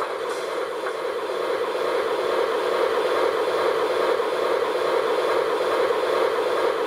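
Steady steam hiss from the ESU LokSound 5 XL sound decoder's speaker in an LGB model of the Harz narrow-gauge 2-10-2T 99 7237-3, playing the Schwoboda sound project's own recordings. It swells over the first two seconds, then holds level with no beat.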